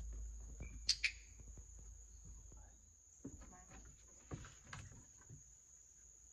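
A steady high-pitched insect chorus, with the sharp double click of a dog-training clicker about a second in. A few soft thuds follow from paws and feet on the foam mat.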